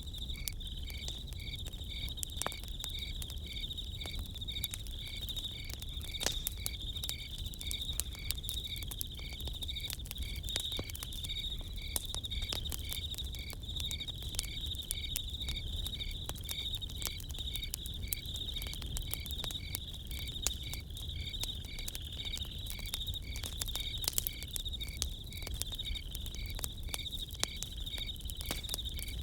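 Crickets chirring steadily, with another cricket chirping in a regular beat about twice a second, over the scattered pops and crackles of a campfire.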